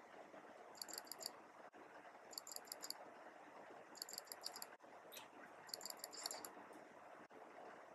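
Faint room noise with four short runs of rapid, high-pitched clicking, each lasting about half a second.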